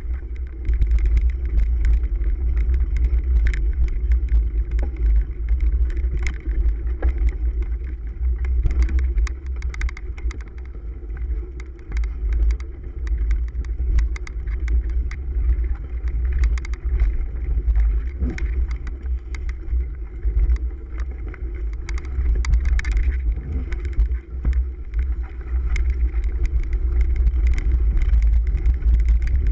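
Heavy wind and ride rumble on a handlebar-mounted camera as a cyclocross bike rides over a bumpy, leaf-covered dirt trail. Frequent short clicks and knocks from the bike rattling over the rough ground.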